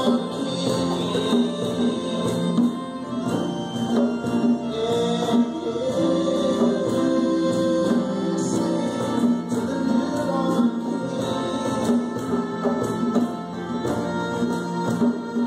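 A live band plays a Christmas song: soprano saxophone, acoustic guitar, electric bass, hand drum and keyboard, playing steadily.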